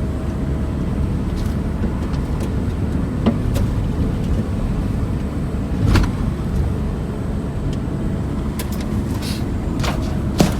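Truck engine running steadily with a low rumble while driving, with occasional knocks and rattles, the sharpest about halfway through and just before the end.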